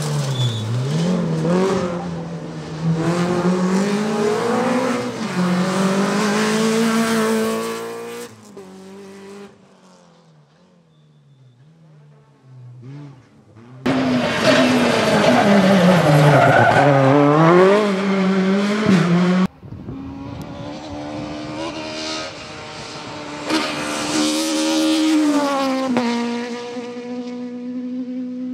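Rally cars driven hard on a tarmac special stage, engines revving up and falling back through gear changes as they pass. Several passes follow one another with sudden cuts between them, and a quieter stretch comes about a third of the way in.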